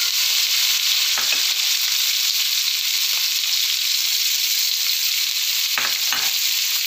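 Oil sizzling steadily in a wok as green chillies and spring onions fry with prawns, with a few short scrapes of a metal spatula against the wok.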